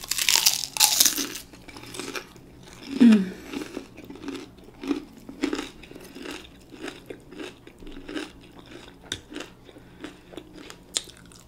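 Close-miked bite into a beer-battered onion ring, with a loud crunch in the first second. Then chewing with many small mouth clicks, and a short low vocal sound from the eater about three seconds in.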